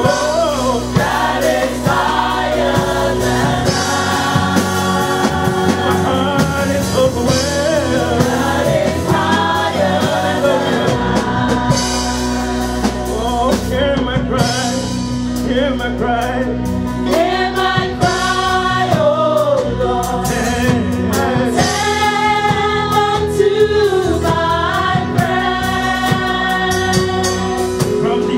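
Live gospel worship singing: a male lead and a group of women singing together into microphones in long, held phrases, over a band with drums.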